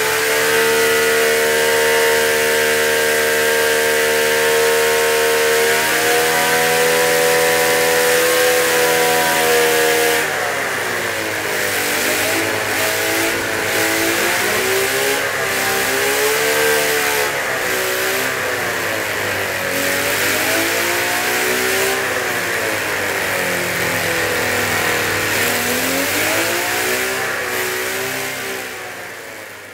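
Artus air-cooled 87 cc model V12 engine, running on methanol with 15% nitromethane, holds steady at high revs. From about ten seconds in it is revved up and down again and again. The sound fades out near the end.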